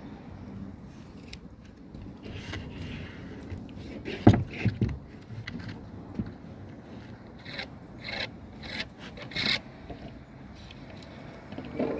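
A plywood formwork sheet laid down onto the roof deck, landing with a wooden knock about four seconds in and a couple of smaller thumps. Short scraping and rubbing strokes on the plywood follow near the end.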